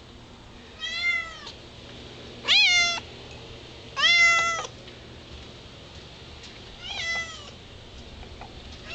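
A domestic cat meowing four times, about a second and a half to three seconds apart, the second and third meows the loudest. The meows are a cat begging to be let outside.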